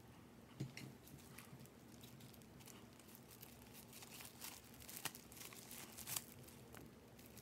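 Faint crinkling and scattered light clicks of a plastic hair-dye container and packaging being handled.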